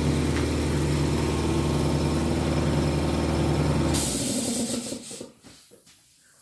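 Air compressor running steadily, then cutting out about four seconds in with a short burst of hissing air, followed by a few faint knocks.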